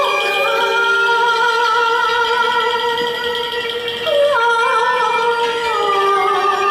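A woman singing a Hakka mountain song (shan'ge) through a microphone with instrumental accompaniment, holding long notes that change pitch a few times.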